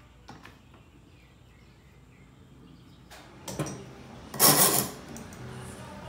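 Clamps being handled and fitted onto a glued-up walnut workpiece: a few light knocks, then a short, much louder scrape about four and a half seconds in.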